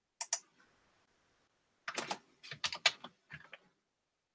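Computer keyboard keys clacking: two quick keystrokes near the start, then a rapid run of keystrokes about halfway through.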